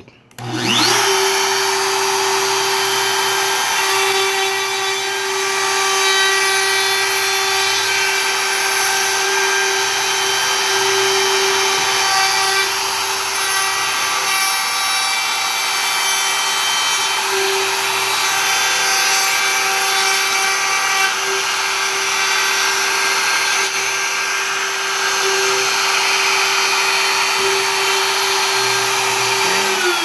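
Makita compact router spinning up about half a second in, then running at a steady whine as its bit cuts a hinge mortise in the wooden edge of a door through a hinge template. Near the end it is switched off and its pitch starts to fall as it spins down.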